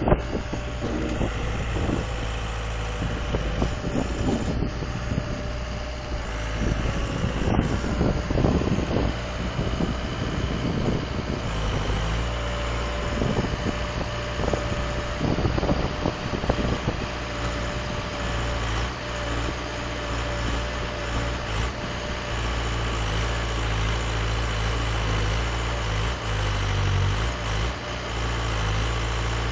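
Diesel engine of a 6-ton wheeled grab excavator running steadily, with irregular clunks and small surges during roughly the first half.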